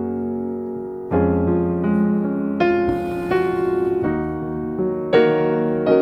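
Background piano music: slow, gentle chords, with new notes struck about once a second.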